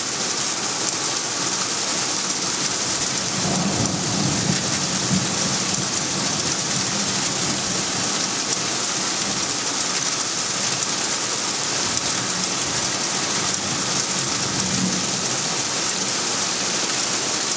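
Heavy thunderstorm rain pouring steadily, with low rumbles of thunder underneath about four seconds in and again near the end.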